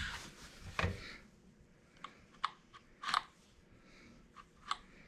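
Scattered clicks and small knocks as the guide bar of a Stihl GTA26 battery mini chainsaw is tightened down by hand, about half a dozen irregular sharp clicks with quiet gaps between them.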